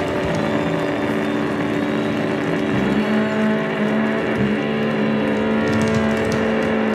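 Live rock band playing: a heavily distorted electric bass holds low notes, moving to a new sustained note about three seconds in, with other instruments behind it.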